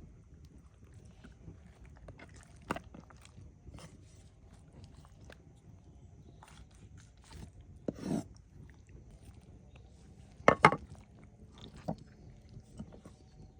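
Scattered light knocks and clicks, with a short scrape about eight seconds in and a louder cluster of knocks about ten and a half seconds in.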